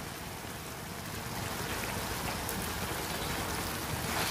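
Masala rice cooking in a pan with freshly added ghee, sizzling and bubbling as it is stirred with a spatula: a steady hiss that swells slightly toward the end.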